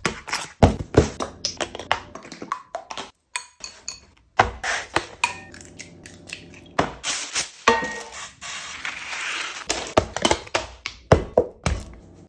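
A quick run of kitchen prep sounds: sharp taps and clacks against bowls, eggs being cracked, and a steady hiss for about a second two-thirds of the way in.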